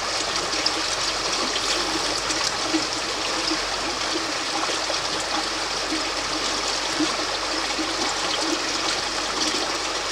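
Shallow, rocky river running fast over stones in a riffle: a steady, even rush of water.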